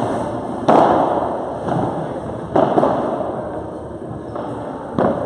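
Padel rally: about four sharp pops of the ball being struck by rackets and bouncing off the court, each echoing around a large hall.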